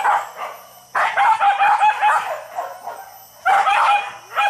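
Hunting dogs barking and yelping in quick, loud runs, in three bouts with short lulls between.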